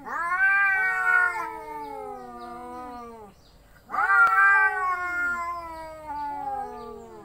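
Domestic cat caterwauling in a standoff with another cat: the threat yowling of a cat fight. Two long, drawn-out yowls, each swelling at the start and then sliding slowly down in pitch. The first ends about three seconds in, and the second begins about a second later.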